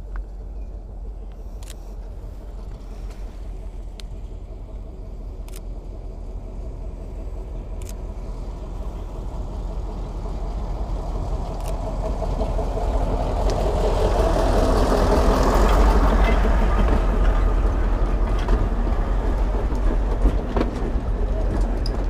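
A train approaching and passing slowly. Its rumble builds over the first half and is loudest about two-thirds of the way in, then stays loud.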